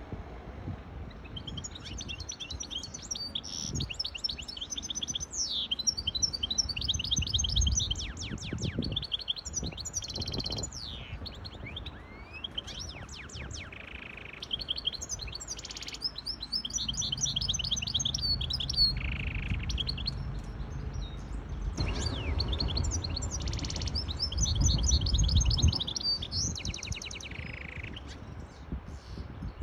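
Caged goldfinch hybrid singing a long, high-pitched song of rapid trills and twittering phrases, broken by short pauses.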